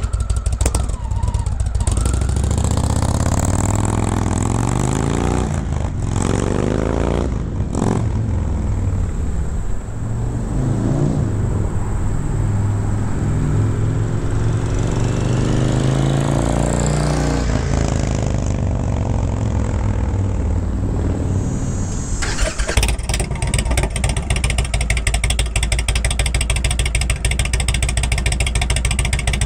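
Indian Thunder Stroke 111 air-cooled V-twin motorcycle engine running through aftermarket exhaust baffles, its engine speed rising and falling. About three-quarters of the way in it settles into a steady, rapid, even pulsing.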